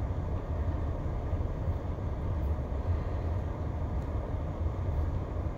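Car cabin noise in heavy rain: a steady low rumble with a hiss of rain on the roof and windshield, and a few faint drips or ticks.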